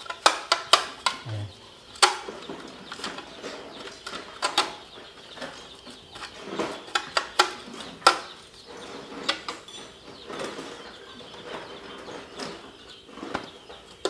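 Brush sweeping out the inside of a metal circuit breaker panel box, clearing out dust and scraps of stripped wire insulation: a run of quick, irregular scratchy strokes, some of them sharp.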